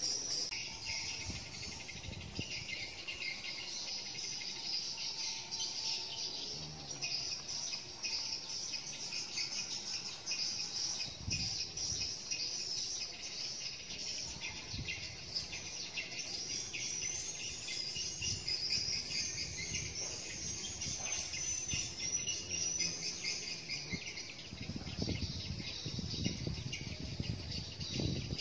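Steady, high-pitched chirring of insects in the surrounding trees, with a few brief low rumbles, the strongest near the end.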